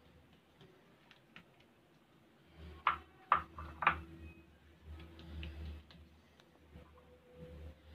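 Faint handling sounds of hands working dough and butter on a marble worktop: scattered light clicks and taps, with three sharper clicks about three seconds in, over an on-and-off low rumble.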